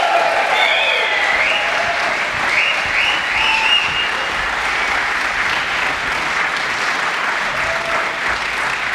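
Theater audience applauding steadily, with a few high whoops rising and falling over the clapping in the first few seconds.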